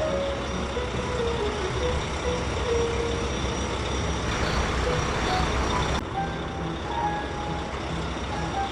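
Cartoon heavy-truck engine sound effect running with a steady low rumble, under short melodic notes. A hissing burst starts about four seconds in and cuts off suddenly two seconds later.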